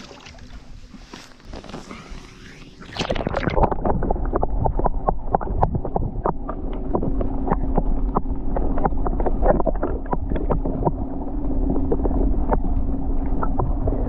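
Water and wind hiss, then about three seconds in the microphone goes underwater: a muffled rumble with many sharp crackling clicks and a steady low hum.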